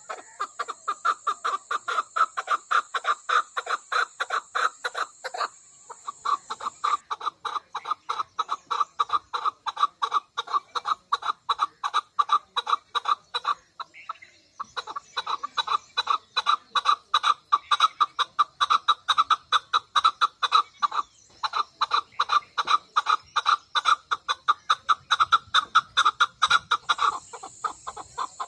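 Chukar partridge calling: a long run of short, evenly repeated notes, about three or four a second, broken by brief pauses a few times.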